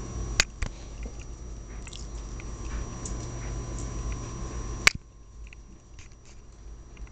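Small scattered clicks and scratches of pet rats' claws on a wire-mesh cage as they scramble about and are picked up, with a sharp click just under half a second in and a louder knock about five seconds in.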